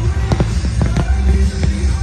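Loud music with a steady bass line, under aerial firework shells bursting and crackling in quick succession, several sharp pops a second.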